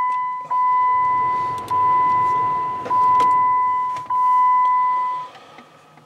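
Electronic chime: one steady tone that re-sounds about every 1.2 seconds, four more times, each note fading before the next, then stops about five seconds in. A few light clicks come in between.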